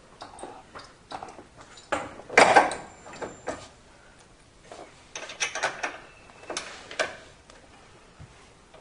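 Irregular metal clinks and knocks of hand tools and bolt hardware being handled on a car's front sway bar end link and control arm. The loudest knocks come about two and a half seconds in, with another run of clinks between five and seven seconds.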